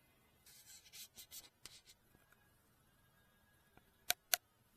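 Faint rubbing and scraping of something being handled, then two sharp clicks in quick succession near the end.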